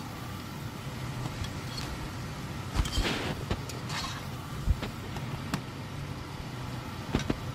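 A slotted spatula stirring chicken pieces, tomato and lemon slices in a non-stick pan: a few scattered scrapes and knocks, the loudest about three seconds in, over a steady low hum.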